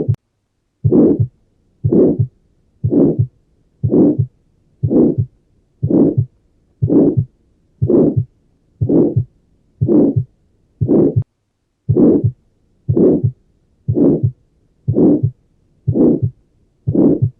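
Heartbeat recording with a murmur: a whooshing sound about once a second, each one swelling and fading over about a third of a second, with quiet between beats.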